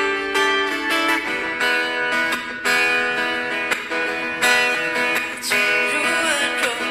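Acoustic guitar strummed in a steady rhythm, playing a pop song accompaniment.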